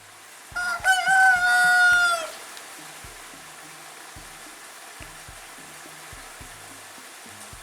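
A village rooster (ayam kampung) crows once, about half a second in. It is a single cock-a-doodle-doo lasting under two seconds, ending in a long held note that drops off at the end. A steady hiss continues after it.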